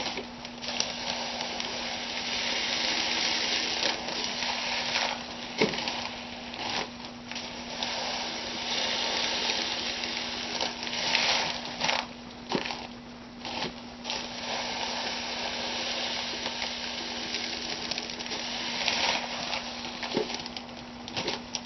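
Plastic bags rustling and crinkling as dry lye is scooped and poured into them, with irregular small knocks, over a steady hiss and a low hum.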